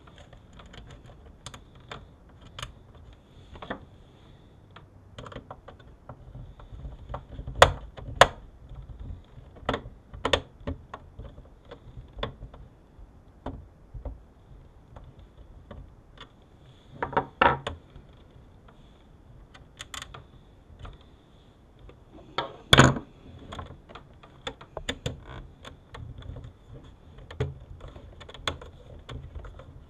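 Irregular clicks, taps and knocks of a car video entertainment unit's plastic housing and metal parts being handled and set down on a wooden table during reassembly. A few knocks stand out louder, about a quarter of the way in, near the middle and again about three quarters of the way through.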